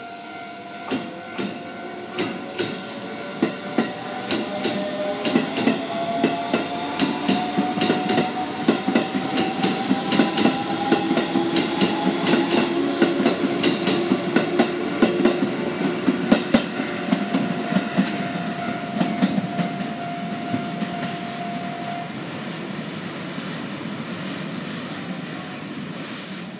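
Shin-Keisei 8800 series electric train pulling out and accelerating past. Its motors whine with a steadily rising pitch while the wheels click over rail joints faster and faster. The sound is loudest as the cars pass in the middle and fades as the train leaves.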